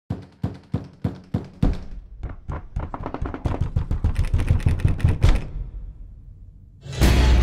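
A run of hard knocks, about three a second at first, then coming faster and crowding together before dying away. A loud rush of sound cuts in suddenly near the end.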